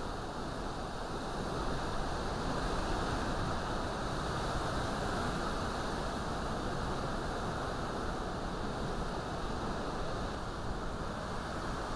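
Category 4 hurricane wind blowing steadily through trees with driving rain, a dense, unbroken rush that grows a little louder about two seconds in.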